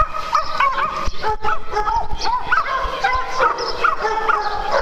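Several dogs yipping and barking at play, with many short, high calls coming quickly and overlapping without a pause.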